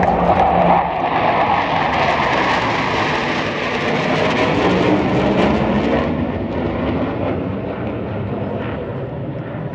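Jet engine roar of a four-ship formation of F/A-18 Hornet fighters flying over, loudest in the first six seconds and then fading as the jets move away.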